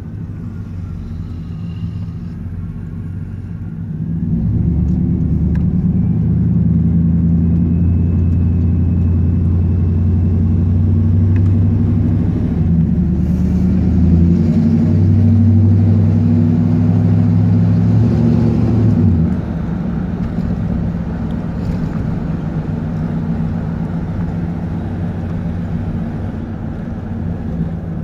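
Chevrolet 350 (5.7L) V8 exhaust note heard from inside the cab of a 1990 K1500 pickup while driving, through a new 2.5-inch exhaust with a dual in/out muffler and no catalytic converter. The steady low drone grows louder about four seconds in and eases back a little after two-thirds of the way through. No exhaust leak is heard.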